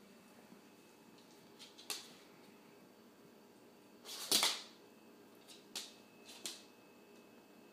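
Dog sniffing at close range: a few short sniffs, with one longer, louder sniff about four seconds in.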